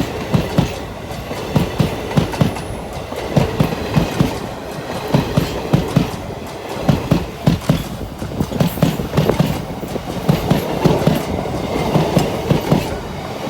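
A train running on the rails with a steady clickety-clack: groups of deep thumps as the wheels cross rail joints, repeating about every second.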